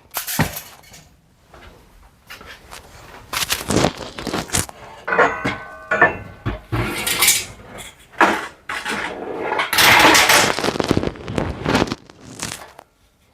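Household items and furniture parts being pulled out and handled: irregular clattering, knocking and scraping, with a brief ringing tone about five seconds in and a longer, loud scraping stretch around ten seconds in.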